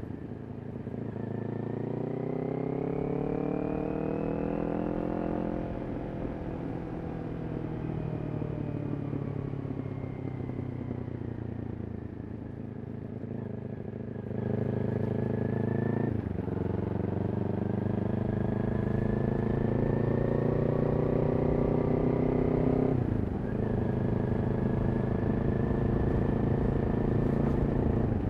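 Kawasaki Ninja 400's parallel-twin engine through a Yoshimura exhaust while riding. The revs rise over the first few seconds and then sag slowly. Past the middle the engine pulls harder and gets louder, and the pitch drops sharply and climbs again twice, at upshifts.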